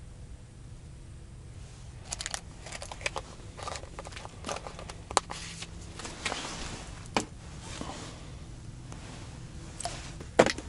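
Close handling noise of baiting an ice-fishing jig and hook with pork fat: irregular small clicks and crinkles of fingers, line, bait and a plastic bait container, starting about two seconds in, with a cluster of louder clicks near the end.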